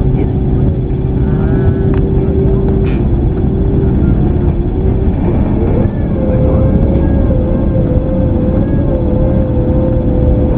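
Cabin noise of a Boeing 767-300: a loud, steady rumble of engines and airflow with an engine whine, which breaks off about five seconds in and comes back higher in pitch a second later.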